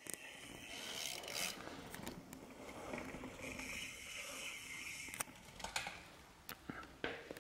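Mountain bike riding past on the race course: tyre and drivetrain noise, with several sharp clicks in the second half.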